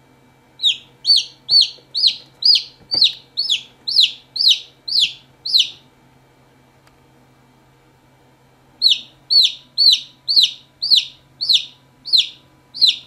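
Newly hatched Fauve de Hesbaye chick, still wet, peeping: a run of about eleven short, high peeps, each falling in pitch, at roughly two a second, a pause of about three seconds, then about nine more.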